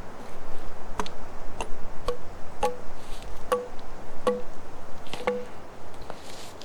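A tool striking wood about seven times at a steady pace. Each strike is a sharp knock with a short ringing tone, as when chopping or driving wood with a hatchet or mallet.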